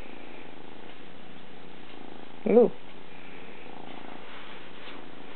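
Maine Coon kitten purring steadily.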